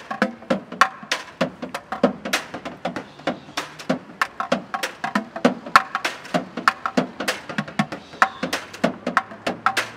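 Bucket drumming: upturned plastic buckets struck with wooden drumsticks in a fast, even rhythm of sharp hits.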